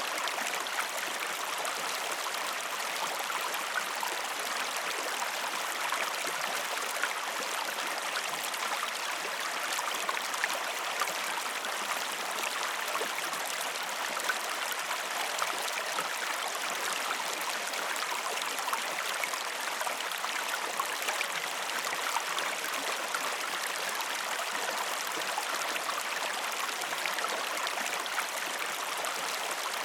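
Stream water flowing and splashing in a steady, unbroken rush, with small gurgles and splashes throughout.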